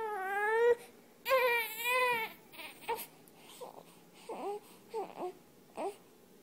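Newborn baby crying: two long, loud wails in the first two seconds or so, then a string of short, quieter whimpering sobs.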